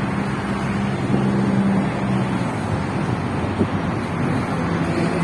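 Road traffic noise from passing cars. One vehicle's engine hum stands out for the first couple of seconds, then fades into the general road noise.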